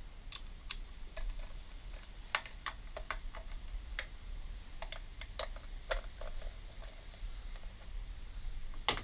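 Scattered light clicks and taps of hands and tools working on small plastic and metal parts of a small outboard's recoil starter, irregular, with a louder click near the end.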